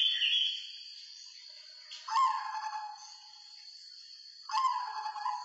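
Zebra dove (perkutut) cooing: two short call phrases about two and a half seconds apart, over a steady faint high-pitched hiss. A fast pulsing high chirp fades out in the first half-second.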